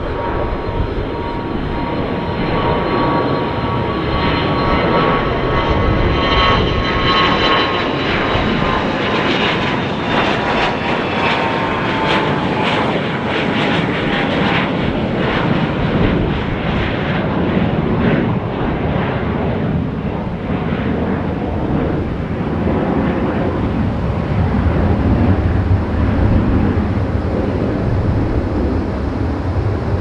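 Bombardier Challenger 300 business jet climbing out after takeoff and passing overhead: a steady jet roar with a high engine whine that slides down in pitch as it goes by, the sound turning into a lower rumble in the second half.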